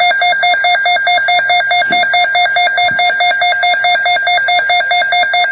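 Emergency Alert System alert tone: a loud electronic tone that pulses rapidly and evenly, about eight times a second, like a ringing telephone.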